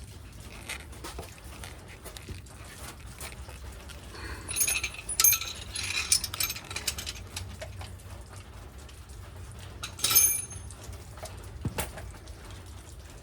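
Metal hardware and tools clinking and rattling, with a brief ringing ring to the strikes, in two spells: about four seconds in and again near ten seconds. A steady low hum runs underneath.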